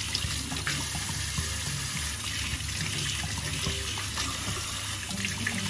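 Kitchen tap running into a stainless steel sink, the stream splashing over eggs as they are rinsed by hand.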